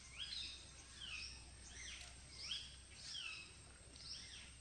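Faint bird calls: a short chirp that sweeps up and then down, repeated about six times at an even pace.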